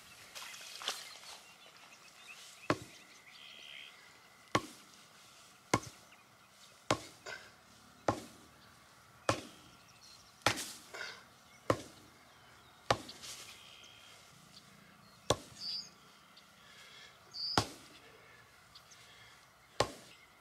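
Sledgehammer blows on the top of a wooden fence post, driving it into the ground: about a dozen sharp, heavy strikes at a steady pace of roughly one a second, with a brief pause partway through.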